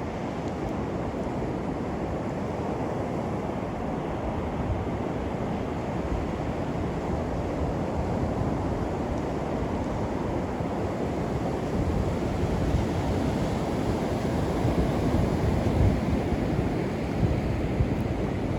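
Sea surf washing onto the beach, mixed with wind on the microphone: a steady rush of noise that grows a little louder in the later part.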